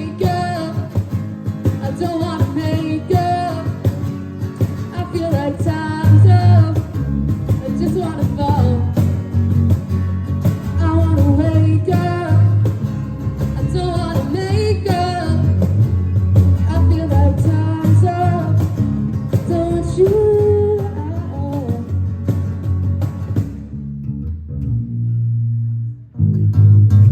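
Indie rock band playing an instrumental closing section: a bending melodic lead line over bass and a steady beat. About three-quarters of the way through, everything but the low bass notes drops out.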